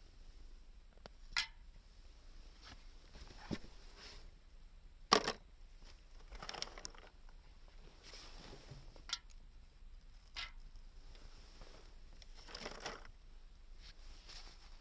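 Sporadic handling noises: sharp clicks and knocks, the loudest a sharp knock about five seconds in, with a few softer crinkling, rustling sounds between them.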